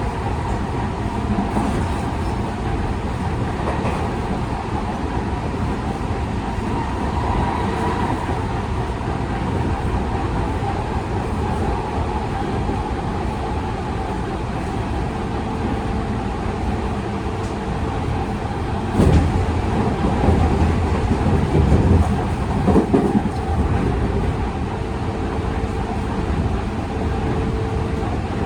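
Running sound inside a Tokyu 5000 series motor car with a Hitachi IGBT VVVF inverter and TKM-98 traction motors: the steady rumble of wheels on rail, with a faint steady motor tone. From about 19 to 23 seconds in, the rumble grows louder and rougher.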